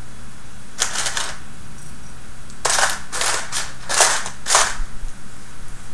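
Plastic construction-kit pieces clicking and clacking together as they are picked up and set down. There is a short rattle about a second in, then a run of sharper clacks from about two and a half to five seconds.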